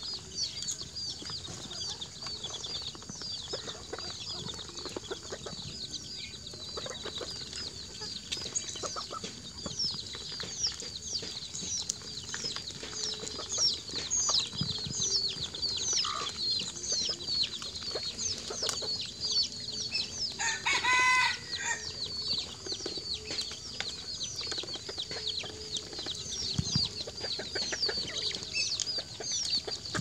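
Poultry flock of chickens and ducks calling, with rapid, high-pitched chirping and peeping throughout. One louder, longer call about two-thirds of the way through.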